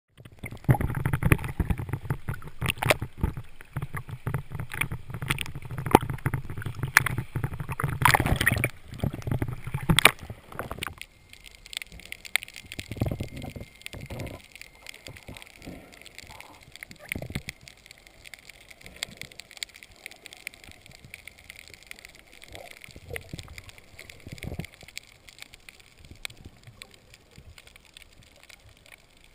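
Water splashing and gurgling around a spearfisherman's mask and snorkel for about the first ten seconds, then the muffled quiet of being underwater, with a faint steady high tone and a few soft knocks.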